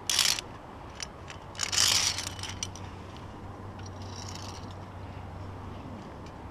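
Via ferrata carabiners scraping and clicking on the steel safety cable: a short metallic scrape at the start, a longer one about two seconds in, with a few light clicks between.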